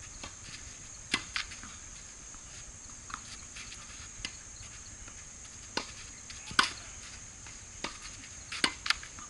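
Tennis balls being struck by racket and bouncing on a hard court: a string of sharp pops at uneven intervals, the loudest about six and a half seconds in.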